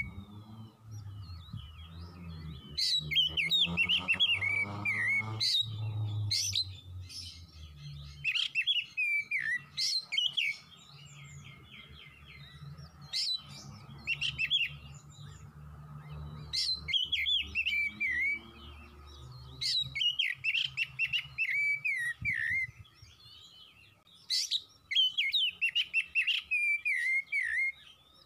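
Oriental magpie-robin singing in about six bursts of varied, quickly changing whistled phrases with sharp clicks, separated by short pauses.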